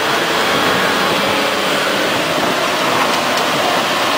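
Bulldozer running, a steady loud rushing noise without a clear pitch.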